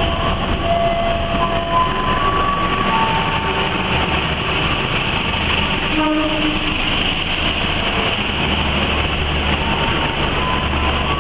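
CC204 diesel-electric locomotive hauling the Argo Anggrek passenger train through a station: a loud, steady rush of locomotive and coaches passing at speed, the locomotive going by about halfway through and the coaches after it.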